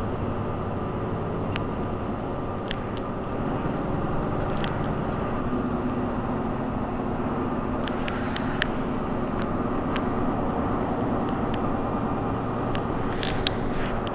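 Mercedes-Benz Citaro C2 city bus idling at a standstill, its engine running steadily, with a few faint clicks over it. About five seconds in, the sound gets a little louder and a low steady hum joins it.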